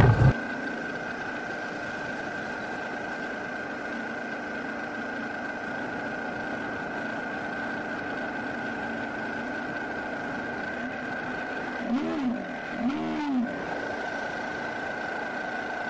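Motorcycle engine pulling steadily in second gear up a steep, rough concrete track. About twelve and thirteen seconds in, the engine note briefly rises and falls two or three times.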